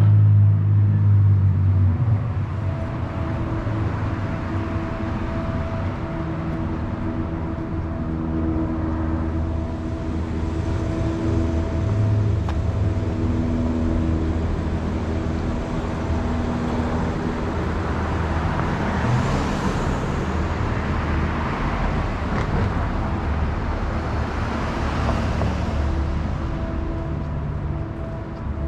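City street traffic: a steady low engine hum under a heavy rumble in the first couple of seconds, with two vehicles swelling past, one about two-thirds of the way through and another near the end.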